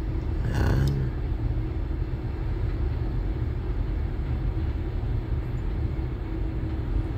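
Steady low mechanical rumble with a faint steady hum above it. A short higher-pitched sound comes just under a second in.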